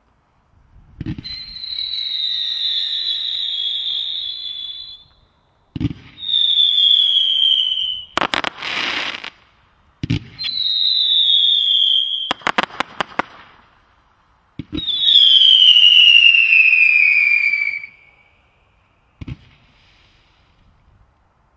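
Skeleton Fanfare firework firing whistling shots. Each shot opens with a dull thump, then a long whistle that falls slowly in pitch; there are four whistles in all, with two bursts of crackling between them.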